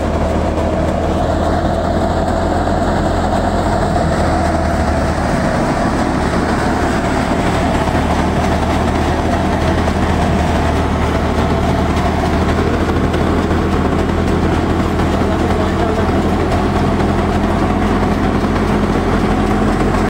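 Wheat thresher running steadily at work: a loud, continuous machine drone with a steady low hum and a dense rushing noise above it.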